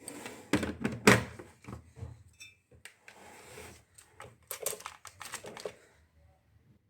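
Irregular plastic clicks and knocks, with a few short rattles, from a small food processor being handled between grinding runs; the loudest knock comes about a second in.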